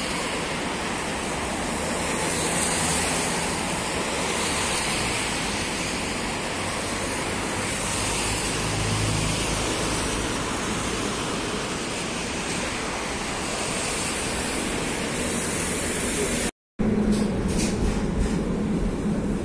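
Steady rushing noise of traffic on a wet road. After a short dropout near the end, it gives way to the low steady hum of a tram interior while riding.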